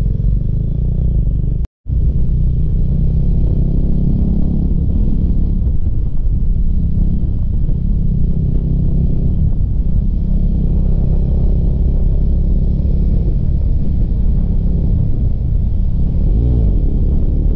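Motorcycle cruising at highway speed: the engine runs steadily under heavy wind rush on the microphone. The sound cuts out for a moment about two seconds in.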